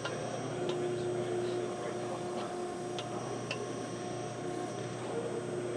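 Backhoe's diesel engine running steadily under a hydraulic whine as the bucket is worked, with a few light clicks and knocks.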